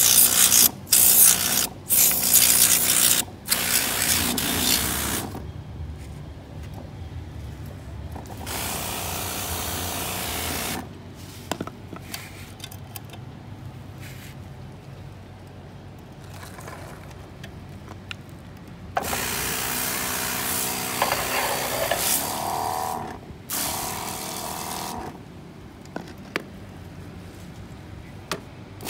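Handheld trigger spray gun blasting water over a scale RC truck in hissing bursts: several short squirts in the first few seconds, then two longer blasts, one about a third of the way in and one past the middle. A low steady hum runs underneath between the bursts.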